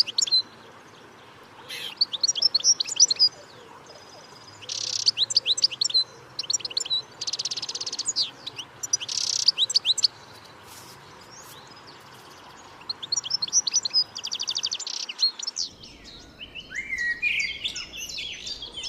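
Songbird singing repeated short phrases of rapid high trills and sharp down-slurred notes, each phrase about a second long with pauses between. Near the end the sound changes to lower, more varied chirping.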